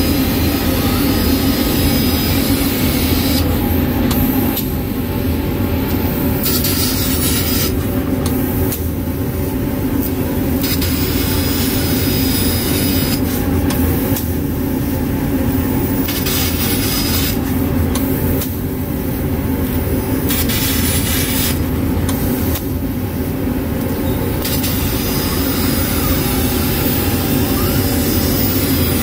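Fiber laser cutter with a Raytools head cutting steel plate: a loud steady hum under the hiss of the cut. The hiss drops away for two or three seconds about every four to five seconds, between cuts, while the hum runs on.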